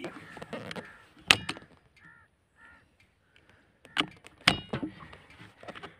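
Birds giving short, harsh calls, mixed with a few sharp clicks or knocks. The loudest click comes just over a second in.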